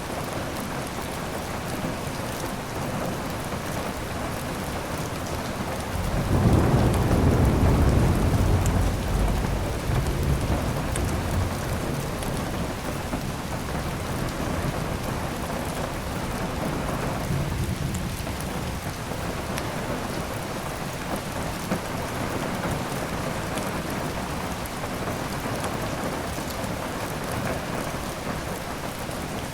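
Steady heavy rain, with a roll of thunder about six seconds in that rumbles for several seconds and fades away. A second thunder roll begins right at the end.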